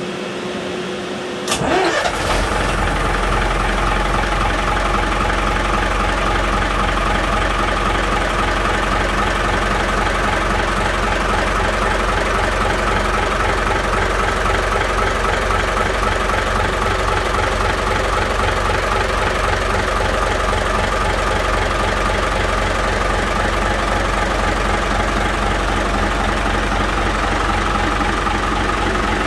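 Gardner 6LXB six-cylinder marine diesel starting: a brief rising starter whine, then the engine fires about a second and a half in and settles into a steady, even idle.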